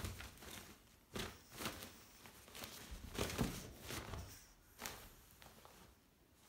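Pug puppy scrambling around a fabric cat tunnel: irregular thumps and rustling as the tunnel is knocked about and paws scrabble on the carpet.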